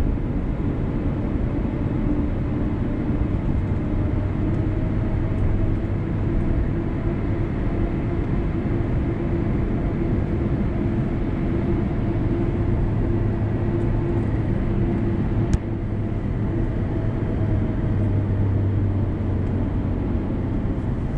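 Cabin noise inside an Airbus A350-900 rolling on the ground after landing: a steady low rumble from its Rolls-Royce Trent XWB engines and the wheels on the runway, with a low hum running through it. One sharp click comes about three quarters of the way through.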